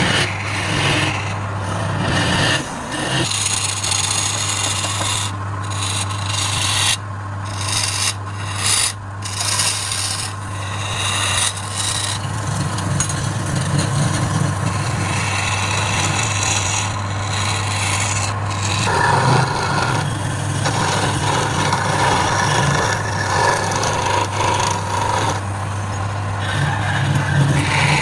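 Wood lathe running with a steady motor hum while a tool scrapes against the spinning workpiece, a rasping cutting noise that breaks off briefly several times and resumes.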